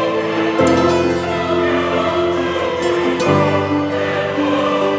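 Intro music with sustained held chords, the harmony changing about half a second in and again a little past three seconds.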